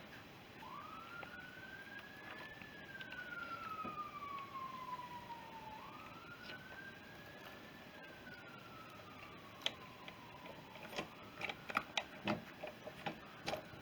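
Faint siren wailing: a single tone rises slowly and then falls slowly, twice over. Near the end come a few light clicks and taps.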